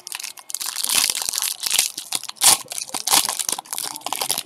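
Foil wrapper of a 2015 Bowman Draft Jumbo pack of baseball cards crinkling and tearing as it is gripped and ripped open by hand, a continuous crackle with sharper crunches throughout.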